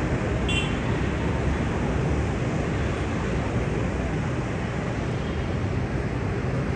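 Airbus A330-200 jet engines: a steady rushing roar with a deep rumble underneath, holding an even level throughout.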